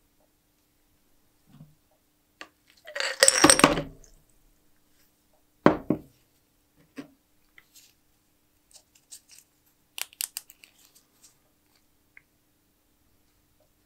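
Vinegar poured from a glass jar into a plastic tub in a short splashing rush about three seconds in, then a sharp knock as the glass jar is set down on the wooden bench. After that come a few light clicks and rustles of gloved hands handling the wet metal sharpener cutters.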